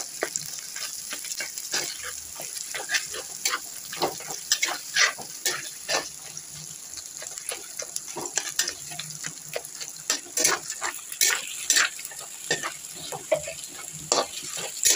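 Mashed boiled potatoes frying in hot desi ghee in a kadhai, sizzling, while a slotted spatula stirs them with frequent irregular scrapes and taps against the pan. This is the potatoes being roasted in the ghee.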